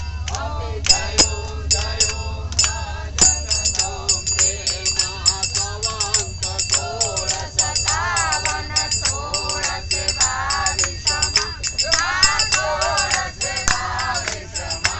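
A group of people singing a Hindu devotional aarti together, keeping time with steady rhythmic handclapping, over the low steady rumble of the train.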